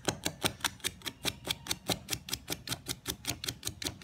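Fine sandpaper rubbed briskly back and forth over a copper switch contact of a Kärcher K2 pressure washer, an even scratching of about six strokes a second. The contact is being cleaned of the burnt black layer that keeps it from making full contact and makes the machine cut out.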